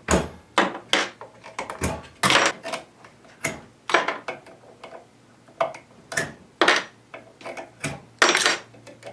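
Needle-nose pliers pulling metal spring clips off a car amplifier's transistors one after another: a dozen or so sharp, irregular metallic clicks and clacks.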